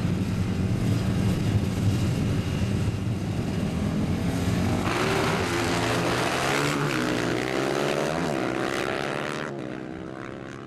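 Two drag-racing motorcycles' engines running at the start line, then launching and accelerating hard, the pitch climbing in steps through the gears. The sound fades from about nine and a half seconds in as the bikes pull away.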